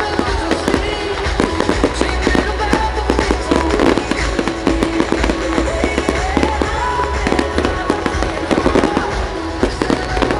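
Fireworks going off in rapid bangs and crackles throughout, over loud pop music with a steady bass and a sung melody.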